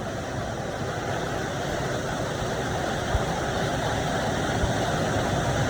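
Waterfall: falling water rushing steadily into the pool below, slowly growing louder.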